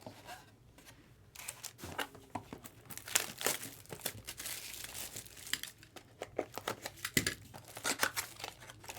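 Trading-card packaging being opened by hand: irregular crinkling, tearing and small clicks of a sealed cardboard mini box and foil card-pack wrappers.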